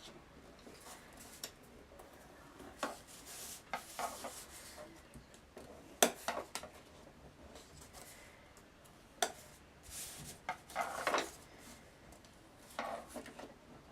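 Cardstock being folded by hand along its scored lines: faint scattered rustles and crinkles of the card, with a sharp tap about six seconds in.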